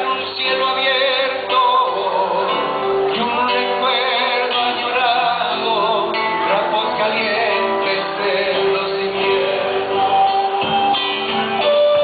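Live band playing an Argentine folk song: a man singing over acoustic guitar and bass guitar.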